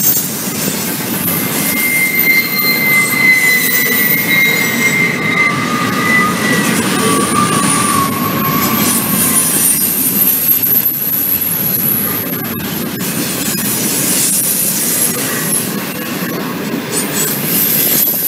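Double-stack intermodal train's well cars rolling past, a steady rumble of steel wheels on rail. For several seconds near the start, thin high wheel squeals ring out, drifting slowly down in pitch before fading.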